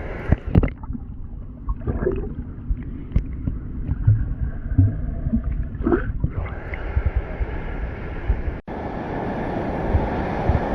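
Rushing water with wind buffeting the microphone and a few handling knocks. About eight and a half seconds in, the sound cuts out for an instant and comes back as a steadier, fuller rush.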